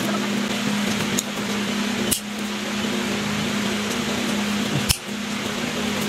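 A steady fan-like hum runs throughout. Two sharp clicks come about 2 and 5 seconds in, with a fainter one near 1 second, as the opened-up snap button machine's shaft and linkage are handled.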